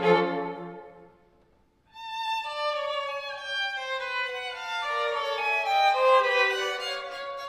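String quartet playing: a full chord with the cello underneath dies away about a second in, there is a short pause, and then the violins come back in with a melody that steps downward, without the cello below.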